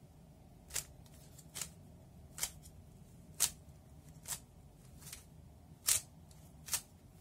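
3x3 speed cube being turned through an algorithm: a series of about eight short clacks of the layers turning, a little under one a second.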